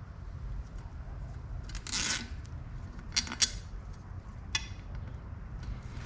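Handling noises from cable housing and zip ties worked against a bike frame: a short rasp about two seconds in, then a few sharp clicks, the loudest about three and a half seconds in, over a steady low rumble.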